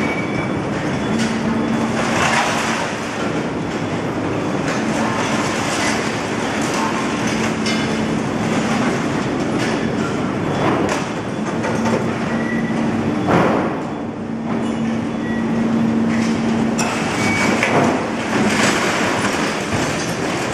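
Overhead travelling crane with a lifting magnet at work over scrap metal: the drive motors give a steady hum that starts and stops several times as the crane moves. Several short bursts of clatter come from the scrap metal handled by the magnet.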